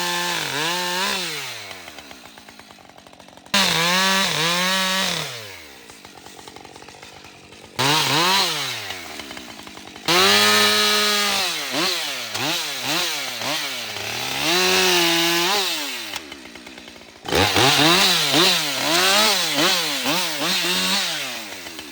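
Husqvarna 545 50cc auto-tune two-stroke chainsaw cutting wood. It snaps to full throttle four times, its pitch dipping and climbing as the chain loads in the cut, and drops back to a quieter idle between cuts.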